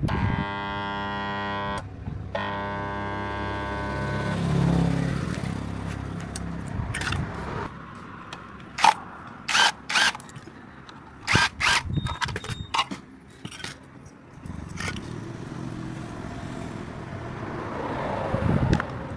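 Electric water pump motor humming steadily twice, each time for about two seconds with a short break between, as it is powered but does not start. Later come a series of sharp metallic clicks and knocks.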